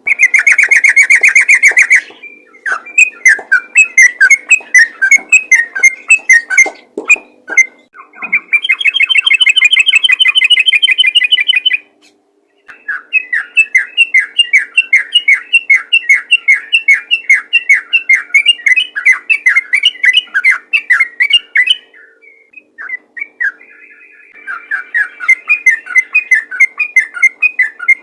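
Yellow-vented bulbul singing in long rapid-fire phrases of quick, repeated chattering notes, the 'ropel' style of a bird in full song. It breaks off briefly twice, about twelve and twenty-two seconds in.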